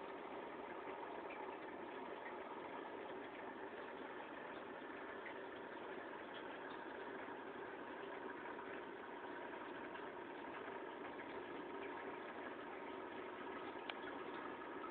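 Steady mechanical hum with hiss, unchanging throughout, with a faint click near the end.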